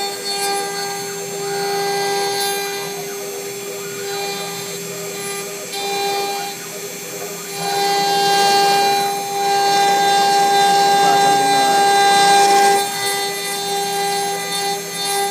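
CNC router spindle running with a steady high whine as its bit carves a wooden cylinder turning on the machine's rotary axis. The cutting noise grows louder about halfway through for some five seconds, then eases.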